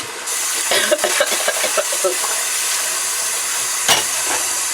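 Chicken pieces frying in hot oil: a loud, steady sizzle with scattered crackles and pops. The sizzle jumps louder just after the start.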